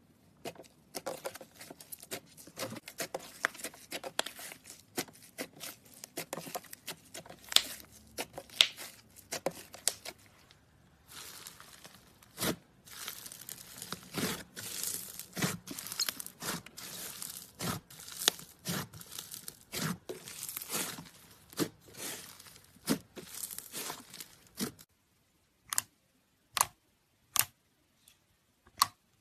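Slime being squeezed and stretched, giving off dense crackling and popping clicks. There is a short pause about ten seconds in, and the crackling thins to a few single pops near the end.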